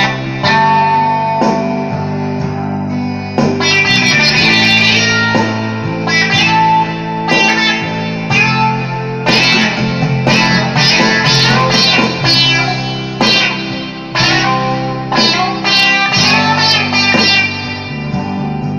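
Hondo II electric guitar played through a Marshall amplifier: a run of picked single notes and chords, each note ringing on before the next.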